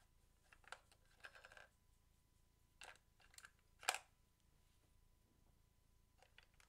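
Faint, scattered clicks and light plastic clatter of small batteries being handled and fitted into a toy figure's battery compartment: about half a dozen short knocks over several seconds, the sharpest about four seconds in.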